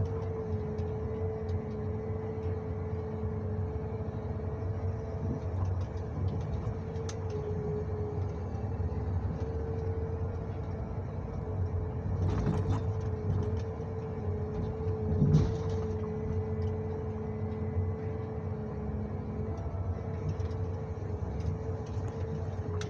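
John Deere 1910G forwarder running, heard from inside its cab: a steady engine rumble with a constant hum, broken by two louder knocks about twelve and fifteen seconds in.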